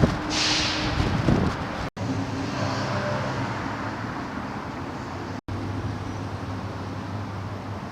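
Street traffic noise from stopped and idling vehicles, with a steady low engine hum and wind on the microphone. A short hiss comes just after the start, and the sound cuts out twice, very briefly.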